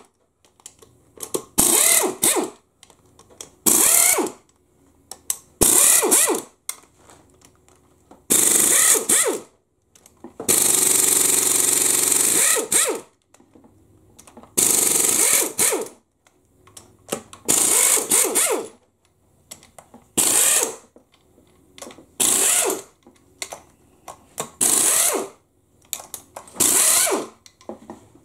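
Pneumatic impact wrench running in repeated short bursts of half a second to a couple of seconds, with pauses between, spinning out the bell housing bolts of a Toyota U140 automatic transaxle.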